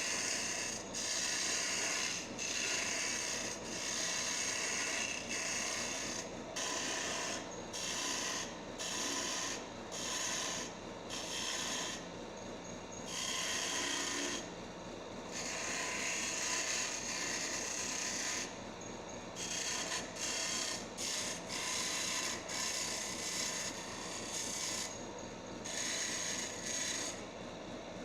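Wood lathe running with sandpaper pressed against the spinning wooden workpiece, giving a rasping rub that comes in repeated strokes with brief gaps, over the steady hum of the lathe motor.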